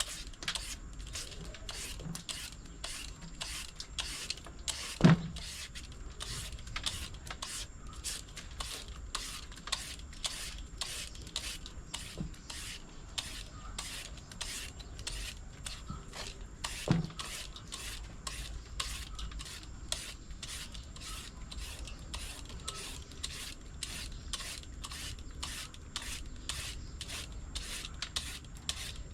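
Green papaya being shredded: a steady run of quick rasping strokes, with a couple of louder knocks along the way.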